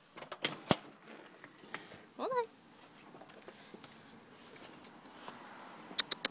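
A storm door's latch and frame clacking sharply twice as the door is opened, then a short rising squeak about two seconds in, and a few sharp clicks near the end.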